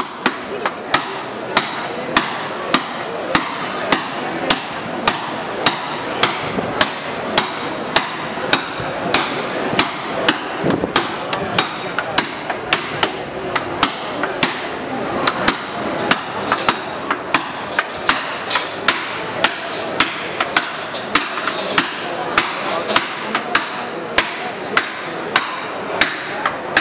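Cooper's hammer driving the iron hoops down on an oak wine barrel that is being heated over a fire inside it: sharp metal-on-metal strikes in an even rhythm, a little under two a second.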